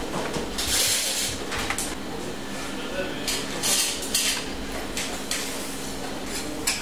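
Dishes and utensils clattering and clinking in a busy professional kitchen, in short bursts over a steady low hum.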